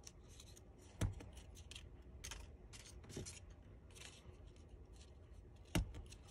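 Small embossing tool scratching stripe lines into paper petals: short, faint scratchy strokes with paper rustling, and two sharp taps, one about a second in and one near the end.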